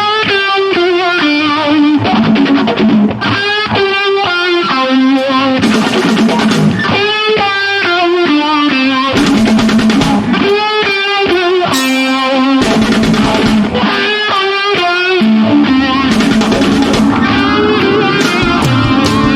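Live rock music led by an electric guitar with effects, playing phrases of wavering, bending notes over a low sustained bass part.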